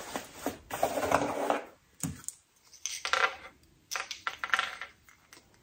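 Cardboard box and packing being rustled and handled in several short bursts, with light clacks of small wooden pieces knocking together as a garland of wooden light-bulb shapes is lifted out.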